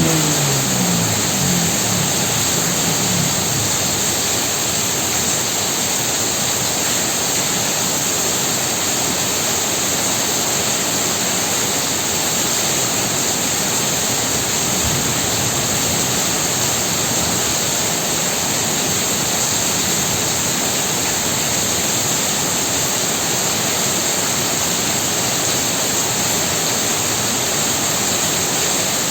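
Heavy rain falling steadily, an even hiss. During the first few seconds an engine hum, likely a passing vehicle, fades away under it.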